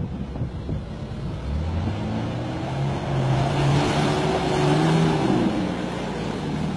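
Nissan Patrol GR Y60's 4.2-litre engine revving under load as it pushes through deep mud and water, with a hiss of churned mud and water spray. The engine pitch climbs about a second and a half in, holds high, then falls back near the end.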